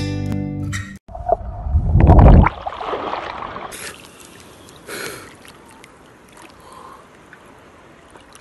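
A short acoustic guitar jingle cuts off about a second in; then pool water splashes and sloshes loudly right at the microphone as a swimmer moves in the water, settling into faint lapping water.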